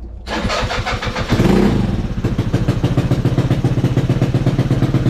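Yamaha Zuma 50F scooter's small four-stroke single is started on the electric starter. It catches a little over a second in with a brief rev, then settles into a steady, evenly pulsing idle.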